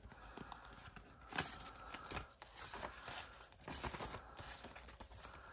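Paper banknotes rustling and flicking as a stack of bills is drawn out of a plastic cash envelope and leafed through by hand, with one sharper crisp snap about a second and a half in.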